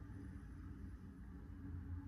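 Quiet room tone with a low steady hum.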